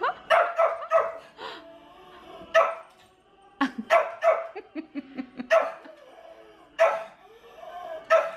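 Shih tzu barking at a dog and cat on a television screen: a dozen or so short, sharp barks in irregular clusters, several close together then pauses of a second or more.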